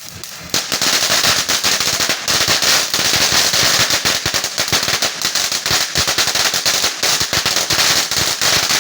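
A string of firecrackers going off in a rapid, continuous crackle of sharp pops over a hiss, starting about half a second in.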